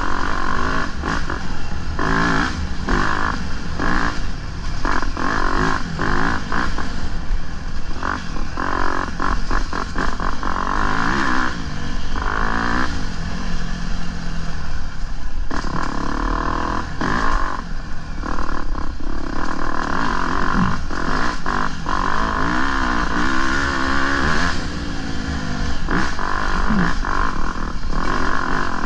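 Off-road dirt bike engine revving up and down as it is ridden over a rocky trail, with frequent knocks and rattles from the bike bouncing over rocks.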